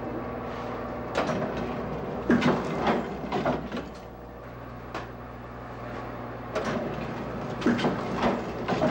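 Screen-printing press at work: clacks and knocks of its screen frame and squeegee carriage in two bunches, from about a second in to three and a half seconds and again near the end, over a steady low hum.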